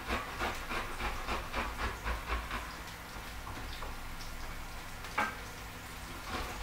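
Garlic being grated on the fine side of a metal box grater: quick rasping strokes, about four a second, that ease off in the middle and pick up again near the end, with a single knock about five seconds in. Under them runs the steady hiss of spring onions sizzling in a frying pan.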